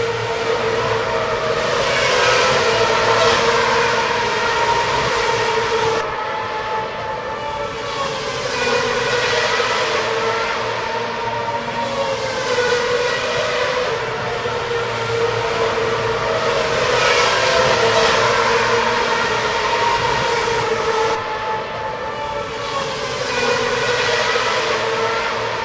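Racing cars' engines screaming at high revs as cars pass one after another, the pitch of each falling as it goes by. The loudness swells every few seconds with each pass.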